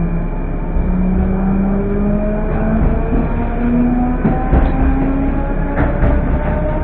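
Electric metro train running from inside the carriage: the traction motors whine in several tones that climb slowly in pitch as the train gathers speed, over a steady rumble of wheels on rails, with a few short clicks from the track in the second half.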